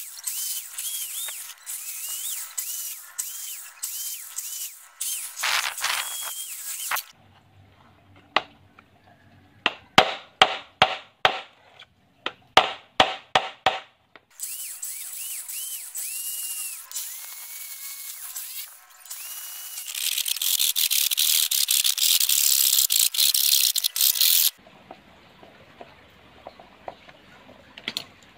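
Kenmaster electric hand drill boring into a wooden plank, its motor note wavering as it bites, then a run of about a dozen sharp knocks, then more drilling, loudest near the end before it stops.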